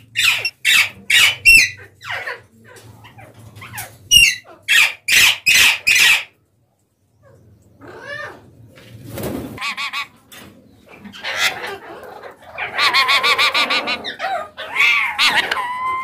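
Alexandrine parakeets screeching: a quick run of short, harsh, shrill calls for the first six seconds. After a brief break comes longer, wavering parrot chatter and calls, densest a few seconds before the end.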